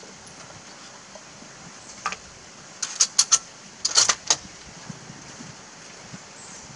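Metal clicks of an FN 1950 Mauser-action carbine's bolt being worked by hand: a faint click about two seconds in, then two quick clusters of sharp clicks around three and four seconds in.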